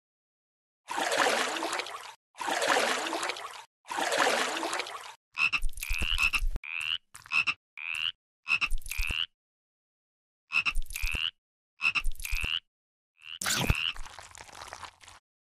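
Three long noisy rushes, each over a second, then frog croaks added as sound effects: clusters of short croaks, each ending in a rising chirp, with a pause partway through.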